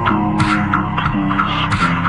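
Slowed-down electronic pop music: a steady beat with deep bass and sustained pitched notes stepping downward.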